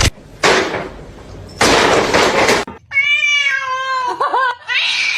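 A cat making two harsh hisses, then a long, wavering meow, with another call starting near the end.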